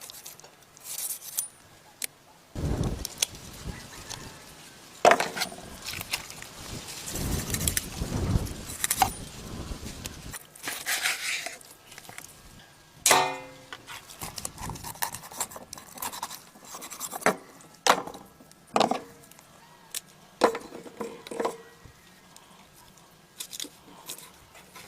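Irregular knocks, clinks and scraping of objects being handled, with a short squeak about halfway through.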